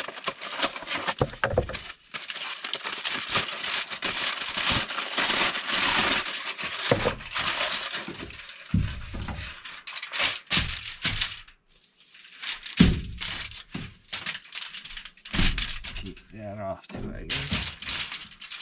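Aluminum foil being pulled off the roll and torn off, then crinkling loudly as the sheet is spread out. Later, rustles and a few dull knocks as ears of corn in their husks are set down and handled on the foil.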